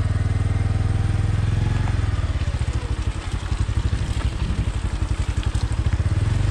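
A vehicle engine running at low revs, its firing pulses distinct and even. It eases off about two seconds in and picks up again near the end.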